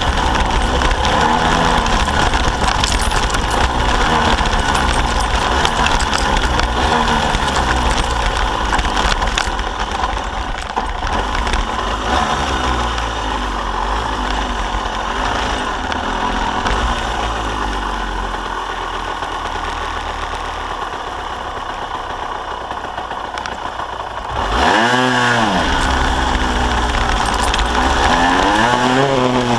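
Kawasaki KSR-2's 80 cc two-stroke single-cylinder engine running under way, its pitch repeatedly rising and falling with throttle and gear changes. It eases off and goes quieter for a few seconds, then revs up sharply and loudly about 24 seconds in.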